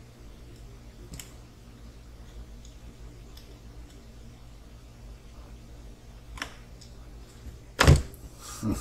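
Faint clicks of small parts being handled and fitted, over a steady low hum, then a sharp knock near the end.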